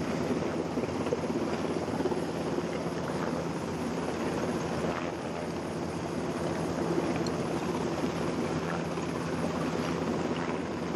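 Coastguard rescue helicopter hovering close overhead, its rotors and engines running steadily, over the lifeboat's engines, the rushing wake and wind on the microphone.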